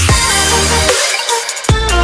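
Electronic dance music with heavy bass and drum hits, in a dubstep style, with a short break in the bass about a second in.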